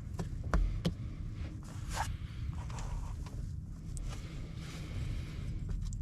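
Two sharp knocks, then scattered rustling, over a steady low rumble.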